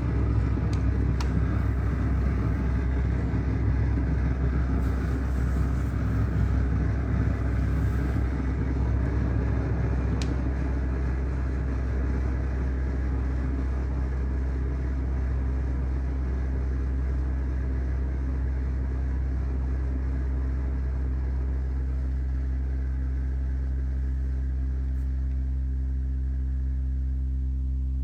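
Modular synthesizer drone from a Make Noise Strega and XAOC Drezno: a loud, steady low chord of sustained tones under a grainy, noisy layer. The noisy layer fades away over the second half, leaving the clean held tones.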